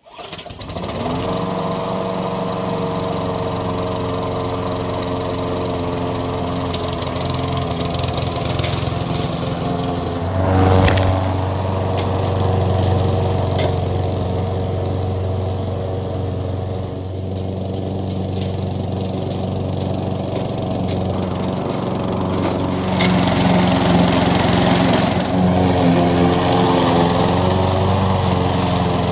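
Gasoline lawn mower engine running while cutting grass, its steady note shifting and getting louder about a third of the way in and again near the end.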